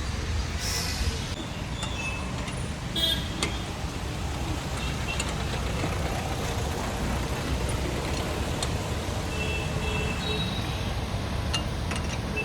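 Steady low rumble of road traffic, with a few scattered light clicks.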